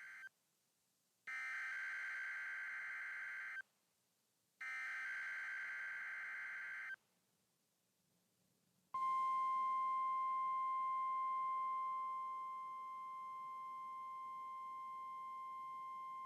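NOAA Weather Radio emergency alert test signal. The SAME digital header plays as harsh warbling data bursts, each about two seconds long with a second's gap: one ends just after the start and two more follow. After about two seconds of silence, the steady 1050 Hz warning alarm tone begins about 9 seconds in and holds, dropping somewhat in level a few seconds later.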